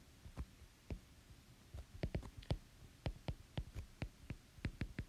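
Stylus tip tapping and clicking on a tablet's glass screen while handwriting: a string of sharp, uneven clicks, with a short gap about a second in.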